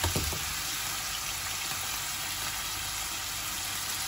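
Shrimp sizzling steadily in hot oil in a small frying pan, with a couple of light knocks just at the start.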